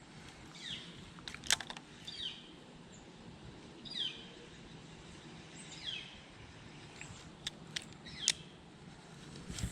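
A bird calling outdoors, repeating a short downslurred note every second or two, with a few sharp clicks in between.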